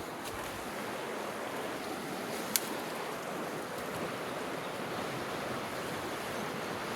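Creek water running steadily, with one sharp click about two and a half seconds in.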